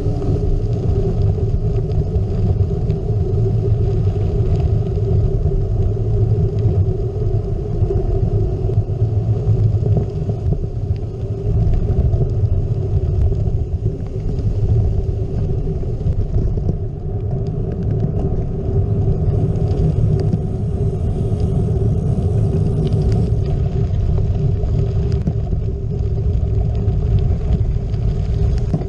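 Steady wind noise on a GoPro microphone riding on a gravel bike, mixed with the bike's tyres rolling over a dirt road.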